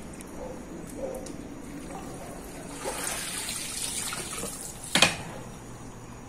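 Water pouring and splashing off a pool vacuum and its hose as they are lifted out of the pool, for about two seconds, ending with a single sharp knock.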